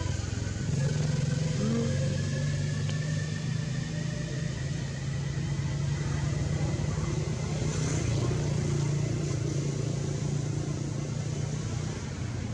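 A motor vehicle engine running steadily, a low hum that swells and eases slightly.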